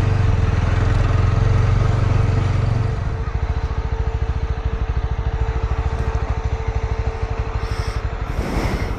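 Motorcycle engine running while riding, easing off about three seconds in to a slower, evenly pulsing putter as the bike slows to a stop. A steady faint whine runs underneath, and there is a short hiss near the end.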